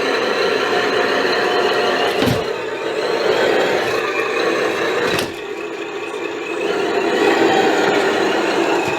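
Reely sound module on an RC Jeep Rubicon playing a simulated diesel engine through its small speaker, running steadily. There are sharp clicks about two and five seconds in. After the second click it drops to a lower, quieter note for a couple of seconds, then rises again.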